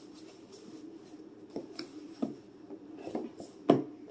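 Scissors snipping and scraping at the packing tape of a cardboard box, with the rustle of the box being handled: a few scattered clicks, the loudest a sharp knock about three and a half seconds in.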